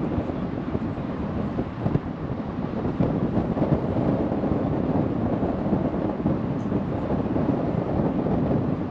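Steady wind rushing over the microphone aboard a moving water taxi, mixed with the boat's running noise.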